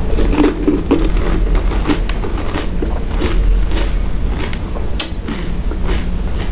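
Close-up eating sounds: crisp pani puri shells crunching and being chewed, in irregular short crackles, over a steady low hum.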